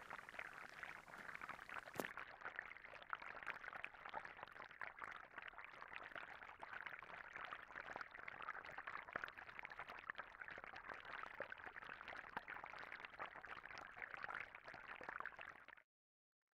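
Faint underwater bubbling ambience, a steady fizzing crackle like water bubbling, that cuts off suddenly near the end.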